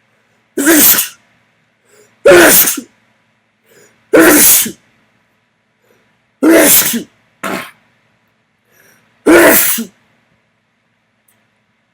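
A person sneezing again and again: five loud sneezes about two to three seconds apart, with a short extra burst right after the fourth.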